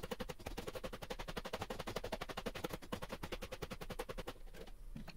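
Hammer tapping a white Vibram Cristy rubber outsole down onto a shoe's leather midsole on an iron shoe last, seating the contact-cemented sole. The taps come fast and even, more than ten a second, and grow fainter near the end.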